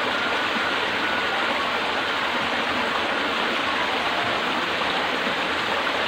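Clear stream water rushing steadily over rocks.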